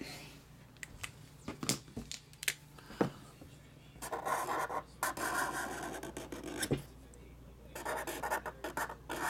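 Cardboard trading-card boxes and packs being handled by hand: scratching and rubbing with scattered clicks and taps, and longer stretches of rustling about four seconds in and near the end.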